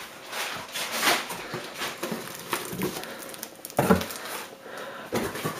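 Packing paper and plastic bubble wrap rustling and crinkling in irregular bursts of handling noise as a bubble-wrapped item is lifted out of a cardboard box. The loudest crinkle comes near the four-second mark.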